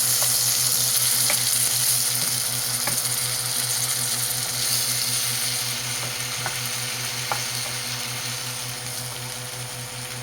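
Onion and green seasoning sizzling in hot oil in a pan, loudest at the start and slowly dying down, with a few light clicks of a utensil against the pan.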